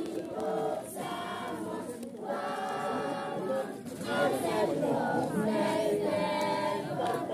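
A group of people singing together, choir-style, in phrases with short breaks about every two seconds.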